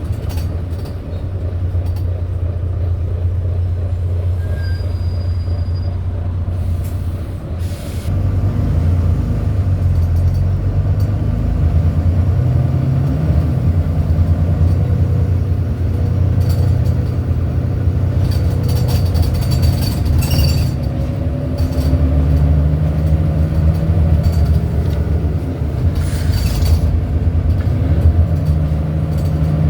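Volvo B9TL double-decker bus's diesel engine running under way, its pitch rising and falling several times as the bus accelerates and changes gear. Short high squeaks and rattles come in now and then over the drone.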